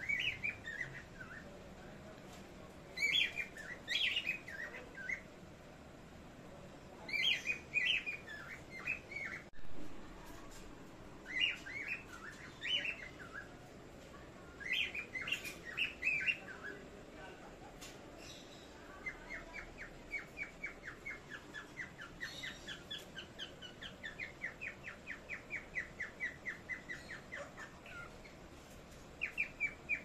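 Pet parrots calling: short bursts of high chirping whistles every few seconds, then a long run of quick, evenly spaced chirps through most of the second half.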